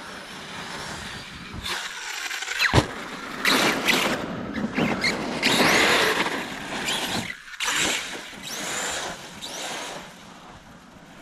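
Kraton XL RC monster truck driving through wet snow: its electric motor whines up and down in pitch with each burst of throttle, over the hiss of the tires churning slush, with one sharp knock about three seconds in.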